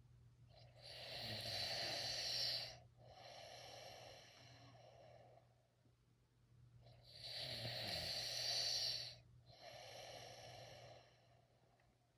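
A person snoring in their sleep: two slow breaths about six seconds apart, each a louder stretch of about two seconds followed by a softer, shorter one.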